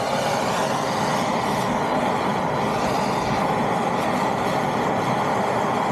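Handheld MAPP gas torch burning with a steady hiss, its flame heating a ceramic crucible of 999 fine silver shot to melt it.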